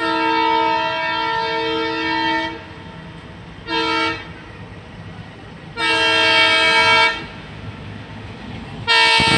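Multi-tone horn of an approaching Indian diesel locomotive, sounded four times: a long blast, a short one, another long one, and a fourth starting near the end.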